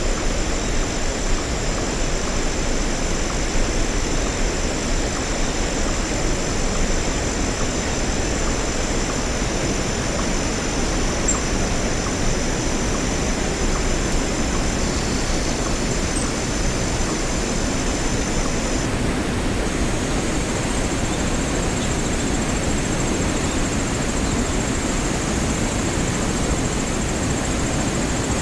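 Steady rushing of a waterfall, with a thin, steady high tone over it that shifts about two-thirds of the way through.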